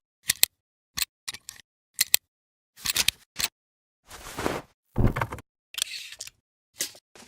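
Camera sound effects: a string of short, sharp camera-shutter-like clicks, each cut off by silence. From about four seconds in come three longer, noisier mechanical bursts, the middle one with heavy low end, then a few more short clicks.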